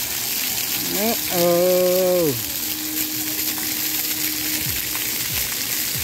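Splash-pad fountain jets spraying water onto wet concrete, a steady hiss. About a second in, a voice gives one drawn-out call lasting about a second, rising and then falling away.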